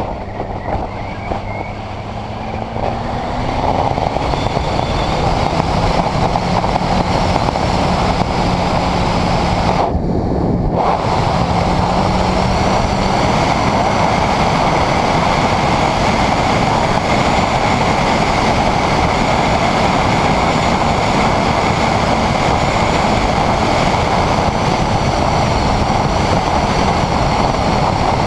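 Honda CBR600RR inline-four engine pulling the bike along, its pitch rising about two seconds in and then holding steady, under loud wind rush on the camera microphone that builds a few seconds in and stays.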